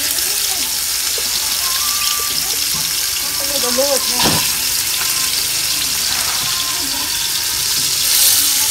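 Meat frying in hot oil in an aluminium pot, a steady sizzle that grows louder near the end as more pieces go in. A single sharp knock about four seconds in.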